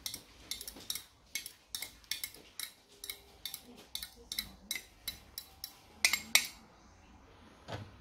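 A metal fork scraping and tapping against a glass container as fruit pulp is scraped out, making quick repeated clinks about three a second. The loudest knocks come about six seconds in, then they stop, and a soft thump follows near the end.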